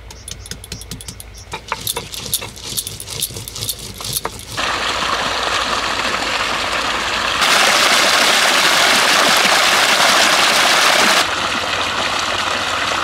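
Dried red chillies and cumin crushed on a stone grinding slab (sil-nora) with a hand-held grinding stone, in quick scraping and knocking strokes. About four and a half seconds in, a steady rush of water gushing from a pipe outlet takes over, louder for a few seconds in the middle.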